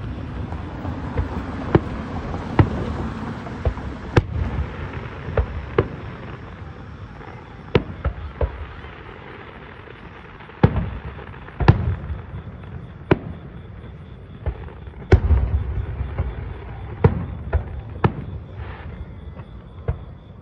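Distant aerial fireworks shells bursting: about fifteen sharp bangs at irregular intervals, some a second or more apart and some close together, with a low rumble of echoes between them. There is a thicker crackle in the first few seconds.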